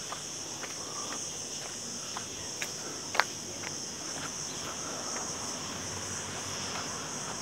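A steady, high-pitched drone of insects, with footsteps tapping on a concrete path about twice a second and one sharper tap about three seconds in.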